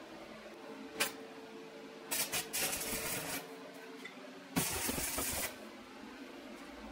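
Workshop noises: a single sharp click, then two short bursts of hissing noise, each about a second long.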